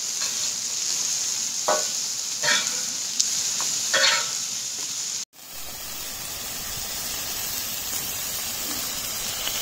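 Chicken strips and sliced bell peppers sizzling on the hot steel cooktop of a Pit Boss gas griddle, with a metal spatula scraping across the steel three times in the first few seconds. About five seconds in the sound cuts abruptly to a steady, closer sizzle.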